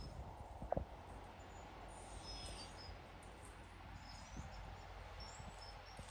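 Faint outdoor background noise: a steady low rumble with small birds chirping now and then, and one short knock just under a second in.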